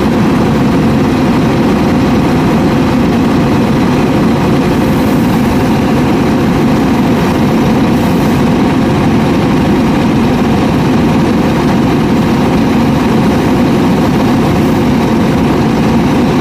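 Scania R580's V8 diesel engine running at a steady speed, heard up close beside the chassis, with no change in pitch or revs.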